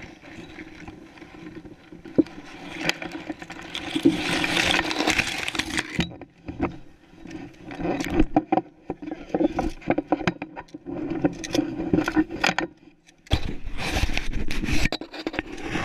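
Dry grass stubble rustling and scraping against the camera and microphone as it is moved, with irregular crackles and rubs and a short pause near the end.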